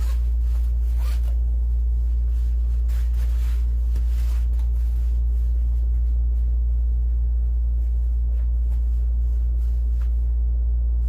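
A steady low hum throughout, with a few brief rustles of nylon jacket fabric and a zipper in the first few seconds.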